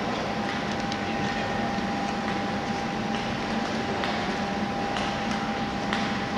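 Steady mechanical hum and hiss with a thin steady high tone over it, and a few faint clicks.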